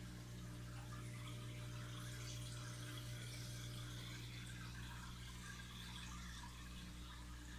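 Saltwater aquarium running: a steady low hum of its pump, with bubbling and fizzing water from the rising stream of air bubbles.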